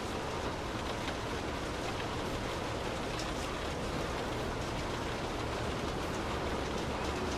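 Steady rain drumming on a car's roof and windows, heard from inside the cabin: an even hiss with a deep low rumble and scattered faint drop ticks.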